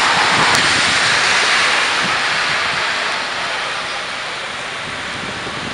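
Heavy rain pouring onto wet pavement, a dense steady hiss that slowly grows quieter.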